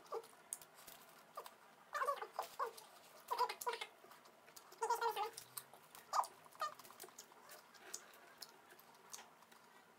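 Close-up eating sounds: chewing and lip-smacking in short clusters, the loudest about two, three and a half and five seconds in, with light clicks and crinkles from fingers pressing rice on aluminium foil.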